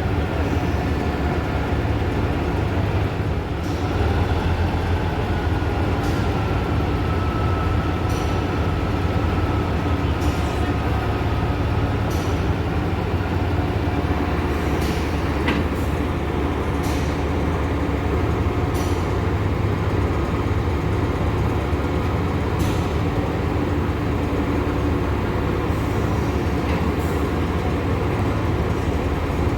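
Sri Lanka Railways Class S8 diesel multiple unit's diesel engine running steadily with a deep, even rumble. Scattered light clicks are heard over it, and a faint high whine comes in for several seconds early in the stretch.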